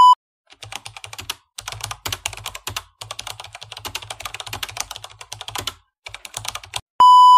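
Computer-keyboard typing sound effect: rapid key clicks in several runs with short pauses. A steady high test-tone beep ends just after the start and sounds again about seven seconds in.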